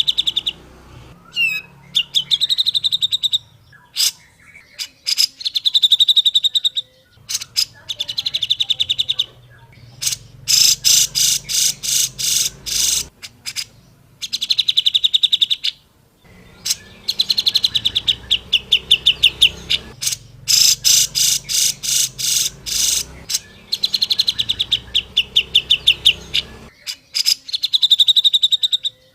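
Cucak jenggot, a bulbul, singing in runs of fast, evenly repeated sharp notes. Each run lasts one to three seconds, with short pauses between.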